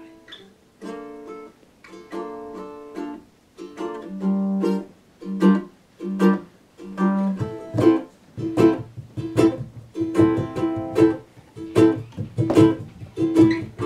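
Ukulele playing a plucked instrumental intro, with a steady beat of low drum thumps joining about halfway through.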